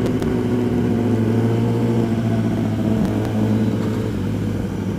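Kawasaki ZX-10RR's inline-four engine running at a steady road speed, heard from the rider's seat with wind noise; the note eases off slightly near the end.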